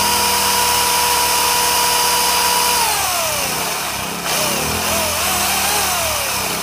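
Remington electric chainsaw's motor whining at full speed, then winding down with falling pitch about three seconds in, and revved again in short uneven bursts from about four seconds in. Under it the Ryobi RYi2200 inverter generator's engine runs steadily, powering the saw.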